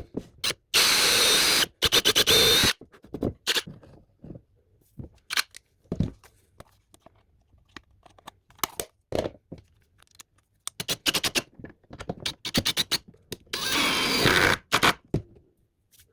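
12 V cordless drill run briefly twice, each for about a second, with many clicks, knocks and scrapes from handling it in between.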